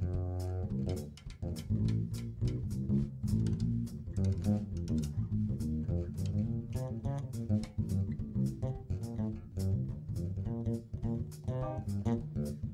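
Jazz trio playing a standard, the upright bass to the fore under a steady cymbal beat of about two to three strokes a second.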